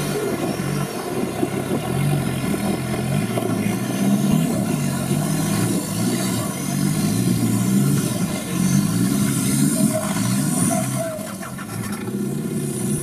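Off-road competition 4x4's engine running loud and revving as it drives through a shallow rocky river, with water splashing from the tyres.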